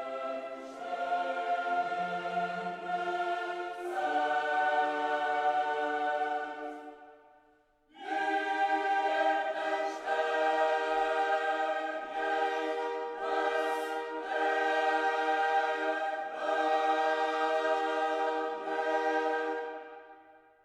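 Background music: choir-like sustained chords that fade out partway through, start again a second later and fade out near the end.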